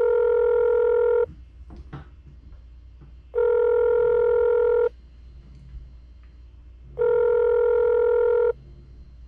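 Telephone ringback tone, heard while a dialed call waits to be answered: three identical long steady beeps, about three and a half seconds apart.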